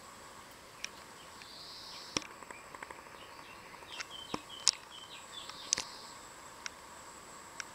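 Outdoor ambience: a steady high thin whine, a few faint short high chirps in the middle, and scattered light sharp taps and clicks, the loudest about two, four and a half and six seconds in.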